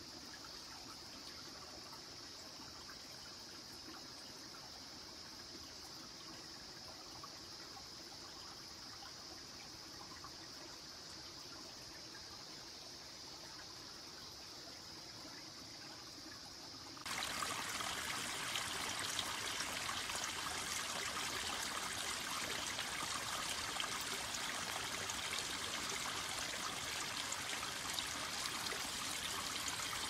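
Flowing water: a faint trickle under a steady high insect drone, then about 17 seconds in an abrupt change to a louder, steady rush of stream water.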